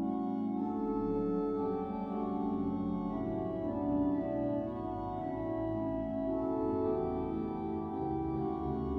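Pipe organ playing slow, held chords, the notes changing every second or two.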